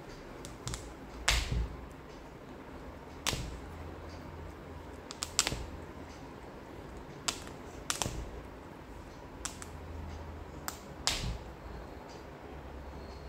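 Irregular sharp clicks and light knocks, a second or more apart, of a cat's claws and a knotted rope chew toy tapping against a wooden tabletop as the cat plays with the toy.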